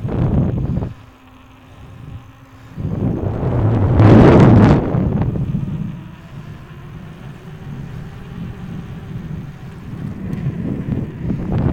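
Wind buffeting the microphone of a bicycle-mounted phone while riding a mountain bike at speed, coming in surges that are loudest about four seconds in, then settling to a steadier low rush.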